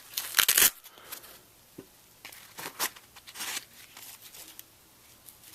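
Nylon flashlight holster being handled: a loud ripping burst near the start as its Velcro is pulled apart, then scattered rustles and light clicks of the nylon and fittings.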